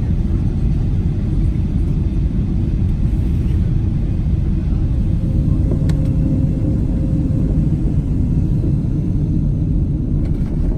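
Steady low rumble of a Boeing 747-8 airliner heard from inside the cabin during the descent and landing, with a faint steady tone joining in the middle and a single click about six seconds in.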